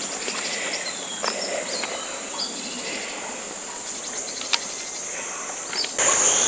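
Insects buzzing steadily in a high, even drone, which grows louder near the end. A single faint click sounds about four and a half seconds in.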